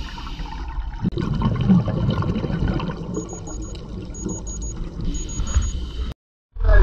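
Underwater sound of scuba divers: a low rumbling water noise with bubbling from exhaled regulator bubbles. Faint high beeps come in three short runs midway.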